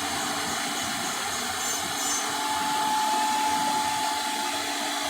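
Multi-spindle CNC wood router running: a steady mechanical whine over machine noise, with a second, higher tone joining about halfway through.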